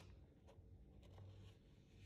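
Faint scraping and a few light clicks of a wooden spoon stirring half-ground nuts in a stainless steel grinder cup.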